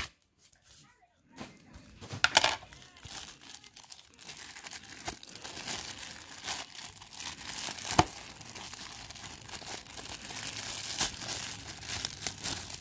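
Clear plastic bag crinkling and rustling as hands work it open to get at a sleeved trading card. There is a short loud rip about two seconds in and a single sharp click around eight seconds.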